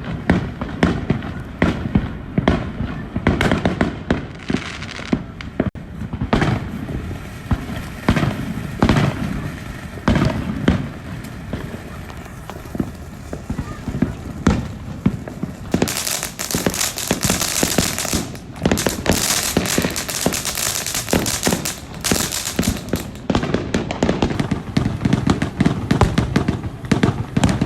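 Fireworks going off in rapid succession: repeated bangs and pops, with a stretch of loud, dense crackling from about sixteen to twenty-two seconds in.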